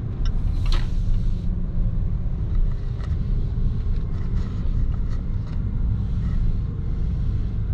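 Low steady rumble of a car driving slowly in city traffic, heard from inside the cabin, with a brief hiss near the start.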